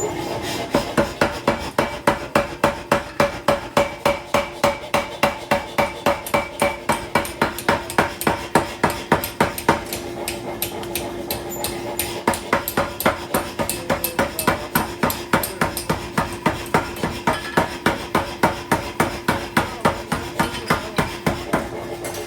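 Blacksmith's hammer striking metal on an anvil in a steady rhythm of about three blows a second, each blow ringing. The blows soften briefly about halfway through, and a steady hum runs underneath.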